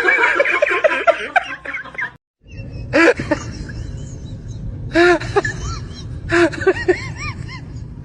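People laughing: a run of quick laughs, then after a short break several separate bursts of laughter.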